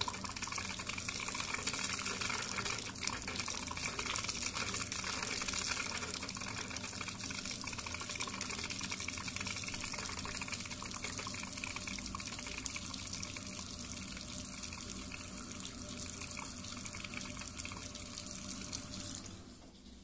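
Water running steadily from a basin mixer tap into a glass vessel basin at full flow again after an airlock in the geyser's supply pipe has been cleared, with air bubbles from the airlock still coming out in the stream.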